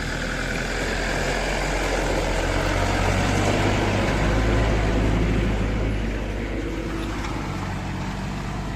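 A motor vehicle's engine running with a steady low hum under a broad rushing noise, growing louder toward the middle and easing off near the end.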